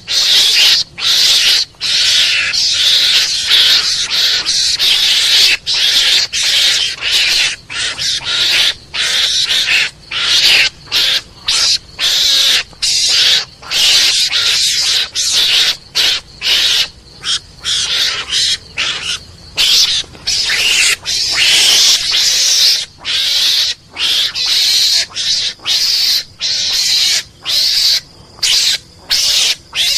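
Mongoose calls played as a hunting lure: a long, rapid string of harsh, hissing chatters, about two a second, broken by short gaps.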